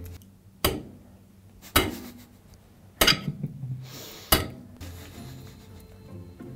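A metal fork clinking against a ceramic plate four times, with sharp separate clicks, over faint background music.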